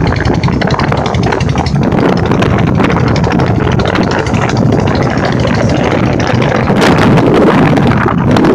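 Motorcycle engine running steadily as the bike rides along a dirt track, with wind rushing over the microphone.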